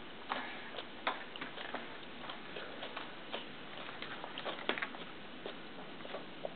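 Scattered light clicks and taps of a baby's fingers on a plastic high-chair tray as she picks up puff snacks, the sharpest about a second in and about two-thirds of the way through.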